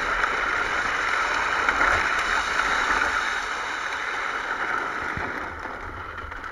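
Plastic wheels of a toy ride-on Kawasaki four-wheeler rolling and sliding over asphalt while it is towed, a steady gritty rumble that fades gradually toward the end.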